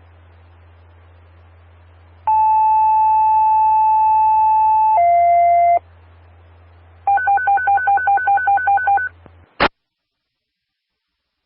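Scanner radio receiving a fire dispatch tone-out over a low hiss and hum. A two-tone page, one steady tone held for nearly three seconds and then stepping down to a lower tone for under a second, sounds first. After a short pause comes a rapid beeping alert tone, about six beeps a second for two seconds, then a squelch click as the transmission cuts off.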